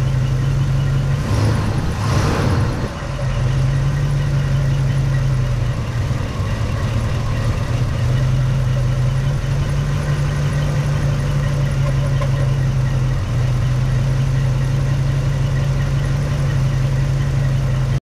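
International Scout V8 idling steadily at operating temperature, with a short burst of noise about two seconds in. The owner suspects a failed camshaft bearing and rocker assemblies running dry on this engine.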